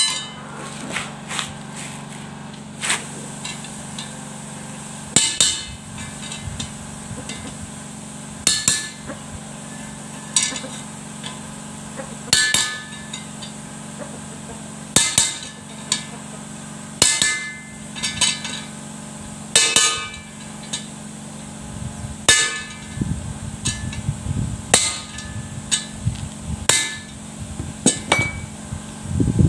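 Claw hammer striking a cold chisel set against a grass-trimmer line plate: sharp ringing metal taps, about fifteen of them, one every second or two. The taps narrow some of the line holes so that 2.2 mm trimmer line grips and does not slip out.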